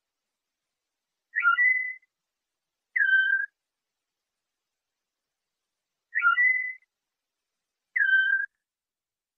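Short clean whistled phrases from a Moroccan 'flawta' canary song-training tape. There are four phrases, each under a second with silence between them, alternating two identical repeated shapes: one rises then holds its note, the other drops then holds.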